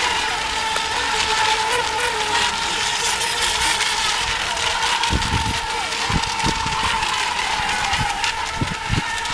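Electric RC racing boats running at speed on the water, a steady high-pitched motor whine. Wind buffets the microphone in short gusts over the second half.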